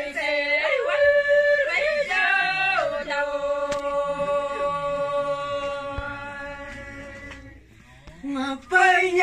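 Women singing a warawi, the traditional Quechua women's song of the Andes, unaccompanied and in high voices. A long held note from about three seconds in fades away, and a new loud phrase starts near the end.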